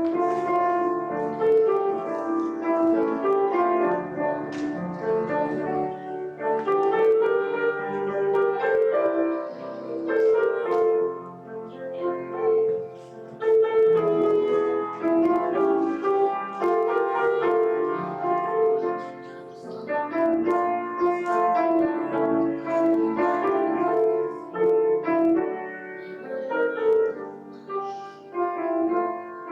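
Piano playing a hymn tune in steady chords.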